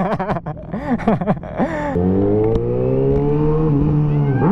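Kawasaki ZX-6R inline-four engine revved hard for onlookers: a string of quick throttle blips, then a longer rev held for about two seconds that drops sharply near the end.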